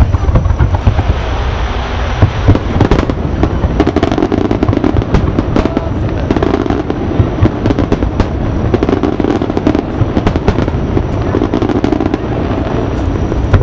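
Aerial firework shells bursting: many sharp bangs in quick succession from a couple of seconds in until near the end, over a steady low rumble.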